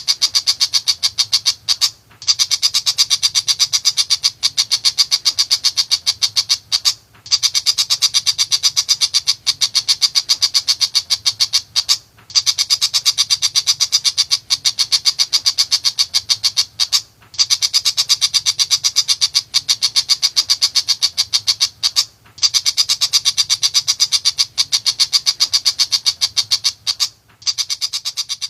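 Tiger shrike giving its rapid, chattering gacor call: fast runs of harsh notes in bouts of about five seconds, each broken by a brief pause and repeating evenly. A faint low hum runs underneath.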